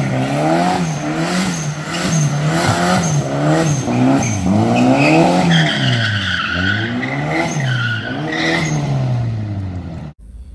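A car doing a smoky burnout: the engine revs rise and fall over and over, about once a second, with tyres squealing on the pavement. The sound cuts off suddenly near the end.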